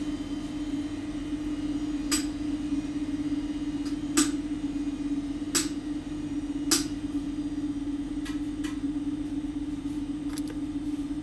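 A steady low hum with a handful of sharp clicks: four distinct ones in the first seven seconds and a few fainter ones later, as of small tools or parts being handled on a workbench.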